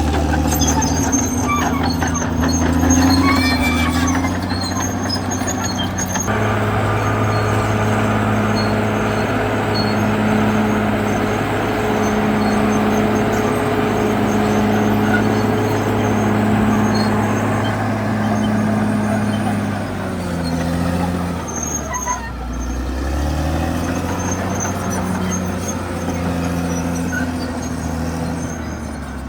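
CAT D6R XL bulldozer's diesel engine running steadily under load, its pitch sagging about two-thirds of the way through and then picking up again.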